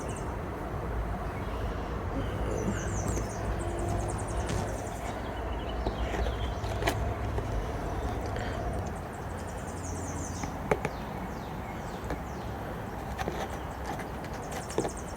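Low rumble of a passing vehicle, strongest over the first half and then easing. Short, high buzzing insect trills repeat every few seconds over it, and there are a few light clicks.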